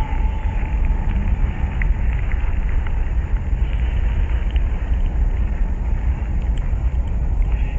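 Steady low rumble with a few faint crackling ticks over it, a spooky ambient sound effect.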